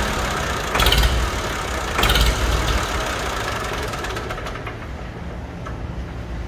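Massey Ferguson 2400 tractor's diesel engine running, with two short louder surges about one and two seconds in, then running on more quietly.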